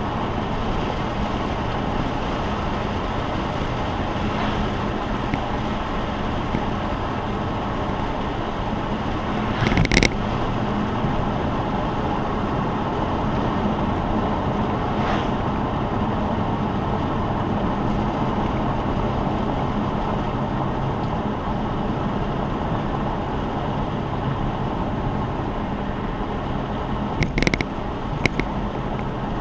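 A car cruising at a steady speed: an even engine drone under tyre and road noise. There is one sharp knock about ten seconds in and a few small clicks near the end.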